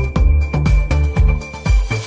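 Upbeat electronic background music with a steady thumping bass beat, about two beats a second.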